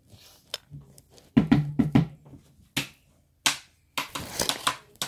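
Ping-pong ball bouncing and clattering off hard surfaces: a single click, then a quick run of four bounces about a second and a half in, then two separate knocks. Rustling and crackling near the end.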